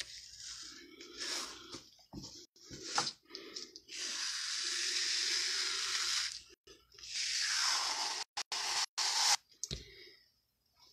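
An adhesive silk-screen transfer being peeled off a cotton kitchen towel: two long, even peeling sounds of about two seconds each, with shorter rustles of hands on the fabric before them and a few light clicks near the end.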